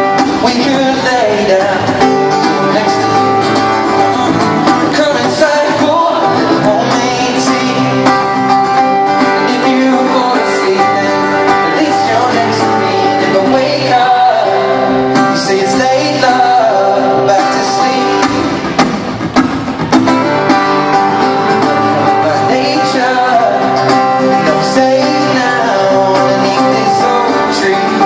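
Male singer performing an acoustic pop song live with acoustic guitar, amplified through a concert sound system.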